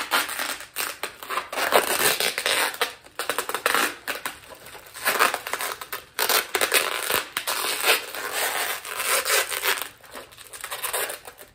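Brown packing tape being pulled off its roll and wound around a bubble-wrapped bundle, in a series of rips a second or so each with short pauses between, the bubble wrap crinkling under it.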